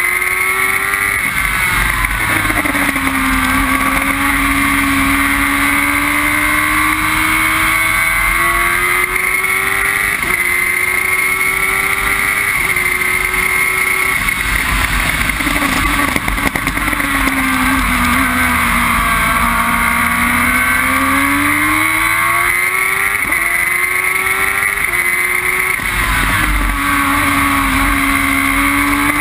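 Onboard engine of a Formula Jedi single-seater racing car at full throttle, its pitch climbing with quick upshifts, then falling steadily as the car brakes and changes down for corners, twice over. Wind and road noise run underneath.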